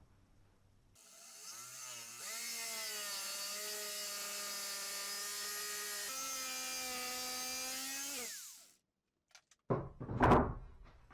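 A power tool winds up and runs steadily for about seven seconds, its pitch stepping once partway through, then winds down and stops. A few sharp knocks follow near the end.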